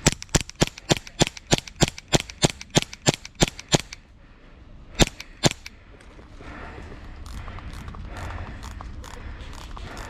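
Airsoft SSP18 pistol firing close by on semi-auto: a rapid string of about a dozen sharp shots, about three a second, then a short pause and two more shots.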